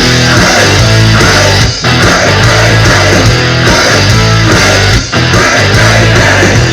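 Hockey goal song: loud rock music with electric guitar and a heavy bass beat, dipping briefly twice.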